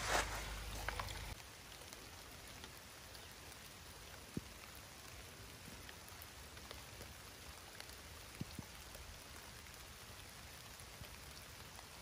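Steady rain falling, with a few single drops striking close by. For about the first second, wind buffets the microphone with a low rumble, then cuts off.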